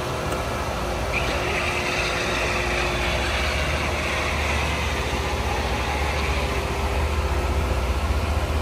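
Steady low rumble of an idling car engine. A brighter hiss rises over it from about a second in and fades out by about halfway.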